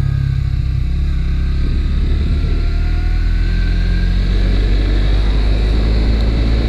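Suzuki GSX-S150's single-cylinder engine running through its stock exhaust as the bike accelerates on the road, its pitch rising slowly.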